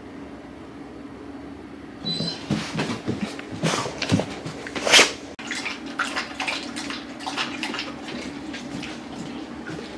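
Golden retriever lapping from a stainless steel bowl: wet, uneven laps a few times a second, starting about two seconds in after a steady low hum.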